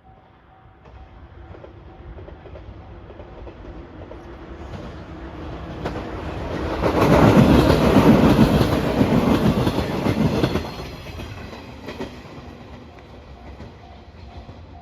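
A train passing by with its wheels clattering. It builds to its loudest about halfway through, then fades away.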